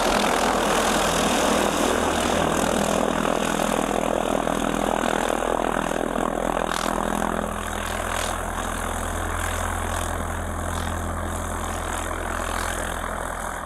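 Piper Archer light aircraft's four-cylinder piston engine and propeller running steadily at low power while taxiing. The sound eases a little about halfway through.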